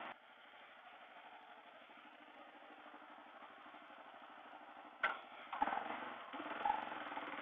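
Motorcycle engine with a Delkevic aftermarket muffler idling quietly, a steady fast-pulsing note. There is a sharp click about five seconds in, and a few louder knocks after it.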